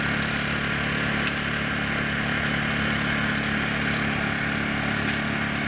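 A small engine running steadily, a constant low hum with a few faint ticks over it.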